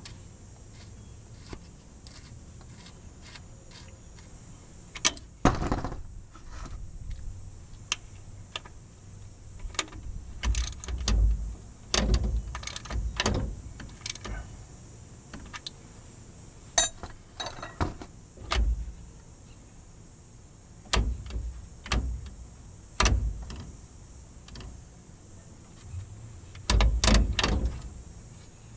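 Hand tools and metal parts clinking and knocking at irregular intervals, with dull thuds between, as parts are refitted on a transmission after a shift seal replacement.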